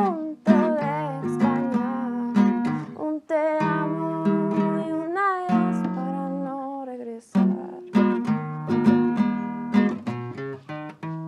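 A young woman singing a song in Spanish to a strummed acoustic guitar. The strokes are hard and percussive, with hits on the guitar.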